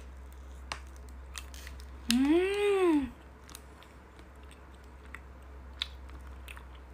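Biting and chewing a frozen ice cream bar with a hard strawberry-chocolate coating: sharp crunchy clicks at intervals. About two seconds in, a closed-mouth hummed 'mmm' rises and falls in pitch for about a second, the loudest sound.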